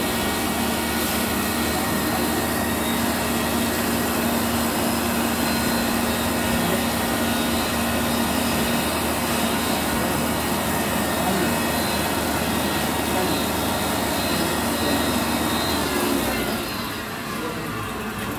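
Electric coffee machine running steadily, a loud rushing hiss over a low hum with a few steady tones. The sound drops and thins out about sixteen and a half seconds in.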